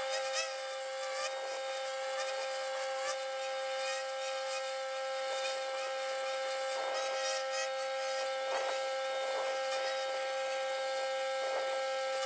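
Pressure washer running with a steady high whine, with brief rushes of noise now and then.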